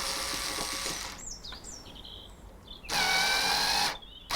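Power drill-driver running in short bursts, backing out the crosshead screws that hold a multipoint door lock: one run during the first second, then another of about a second with a slightly falling whine about three seconds in, and a third starting at the very end.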